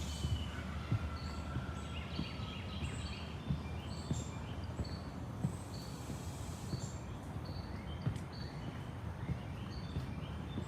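Several wild birds chirping and calling over each other in short, repeated high notes, with soft low thuds every second or so and a steady low outdoor rumble.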